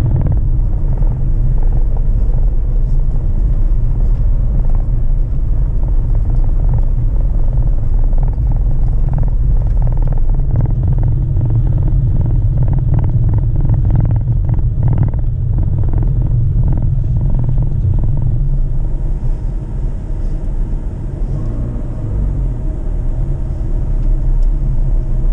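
Inside the cabin of a 2021 Dacia Duster 4x4 with its 1.5-litre Blue dCi 115 diesel, driving on a dirt track: a steady low rumble of engine and all-terrain tyres on gravel, with a run of knocks and rattles from bumps in the track around the middle.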